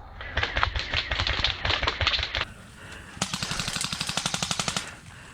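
Airsoft guns firing full-auto: two bursts of rapid clicks, each about two seconds long, the second starting about three seconds in.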